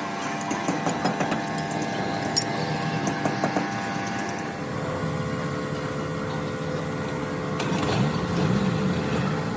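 A machine running steadily with a mechanical hum, with a run of rapid clicks in the first half and a wavering tone near the end.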